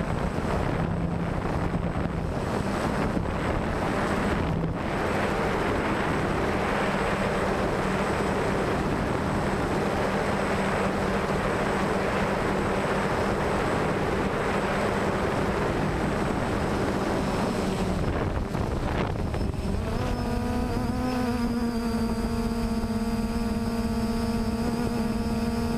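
DJI Phantom quadcopter's motors and propellers buzzing steadily in flight, heard through the onboard GoPro's microphone with wind noise. About 20 seconds in, the buzz rises in pitch and holds higher as the pilot powers out, responding to the gimbal cutting out mid-flight.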